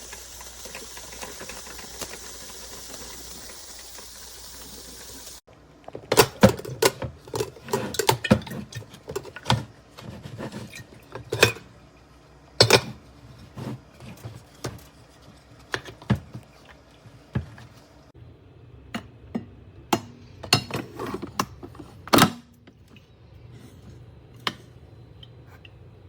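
A steady hiss that stops abruptly, followed by a long run of irregular knocks, clicks and clatter of hard objects being handled. The last loud knock comes about three-quarters of the way through.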